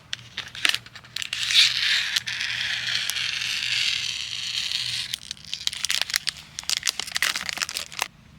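Packaging being handled and torn open: crisp crinkling, a few seconds of continuous rustling and tearing, then more crinkling that stops suddenly near the end.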